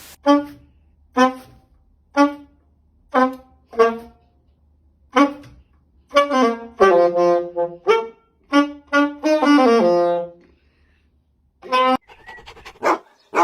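A saxophone playing short separate notes about a second apart, then a quicker run of notes with downward slides in pitch, breaking off about ten and a half seconds in before a few more short notes near the end.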